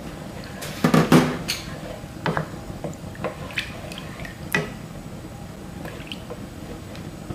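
Wooden spatula stirring crab meat and creamed corn through water in a nonstick frying pan: liquid sloshing, with light clicks and knocks of the spatula, loudest in a cluster about a second in.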